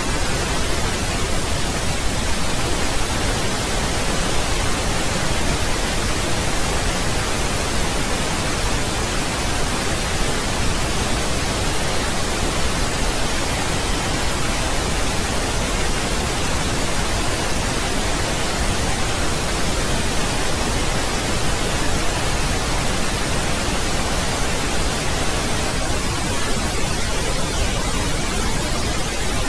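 Steady, unbroken pink noise: an even hiss spread across all frequencies, with more weight in the low end than white noise.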